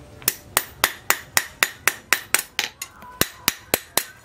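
Hand hammer striking a steel knife blade, forged from a tractor plough disc, on a steel post anvil: a steady run of sharp, ringing metal-on-metal strikes, about four a second, with a short pause about three seconds in.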